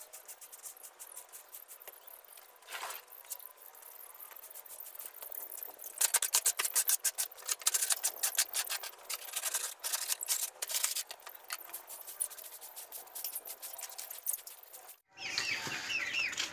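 Rapid, scratchy cleaning strokes across the floor of a chicken coop, sparse at first and coming thick and fast through the middle, then stopping suddenly near the end.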